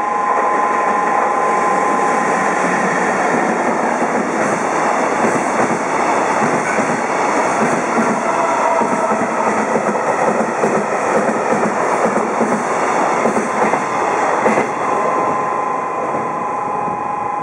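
Freight train hauled by an EF64 electric locomotive passing at speed, its wagons' wheels rumbling and clattering over the rail joints, with one louder bang about 14 seconds in. A steady two-pitch tone sounds at the start and again near the end.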